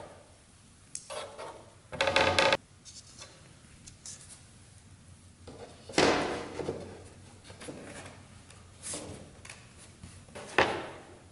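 Thin plywood sheets being handled on a workbench, sliding and rubbing against each other and being set down with light knocks, in several separate scrapes; the loudest come about two seconds in and about six seconds in.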